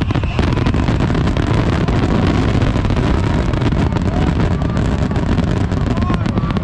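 Fireworks barrage: many aerial shells bursting at once, making a dense, continuous low rumble with rapid crackles on top.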